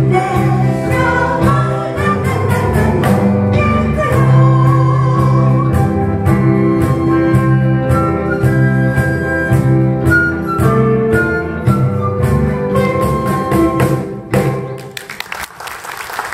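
Singer with a small band of guitars, keyboard and cajon playing the final lines of a Japanese popular song through to its closing chord. About fifteen seconds in the music stops and the audience breaks into applause.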